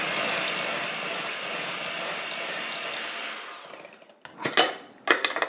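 Electric hand mixer running steadily as its beaters whip a butter mixture in a glass bowl, then switched off about three and a half seconds in and winding down. Two or three sharp knocks follow near the end.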